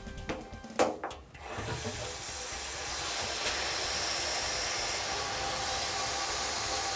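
Water heater drain valve being opened, with a couple of knocks about a second in, then water rushing out through the garden hose as a steady hiss while the tank flushes.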